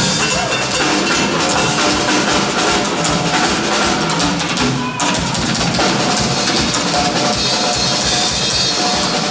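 Live band music with a drum kit driving it, kick and snare prominent. About five seconds in there is an abrupt cut to a different stretch of drum-heavy band playing.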